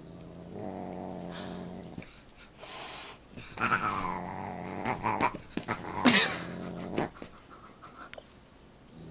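A dog growling in play during a paw-swatting match with a cat, a steady low growl that comes and goes, with a few sharper falling cries in between, the loudest about six seconds in.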